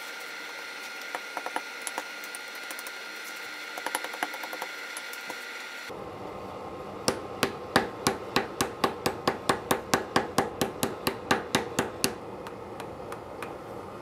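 Blacksmith's hammer forging hot steel on an anvil: an even run of about twenty ringing blows, roughly four a second, in the second half. Before it, a steady hum from the gas forge with a few light clicks of tongs and steel.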